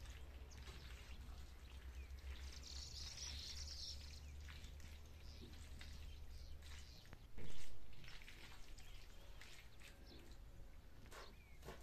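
Wooden spoon stirring pasta and meat sauce in a frying pan: soft scraping and clicking against the pan, over a steady low hum that stops about seven seconds in. A brief louder knock comes about seven and a half seconds in.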